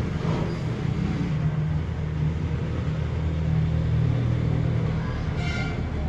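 A steady low rumble with a mechanical hum, and a brief higher-pitched tone about five and a half seconds in.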